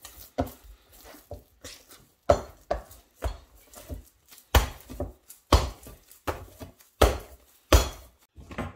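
Brioche dough being kneaded by hand in a large wooden bowl: irregular soft thumps and slaps as the dough is pressed, folded and pushed against the wood.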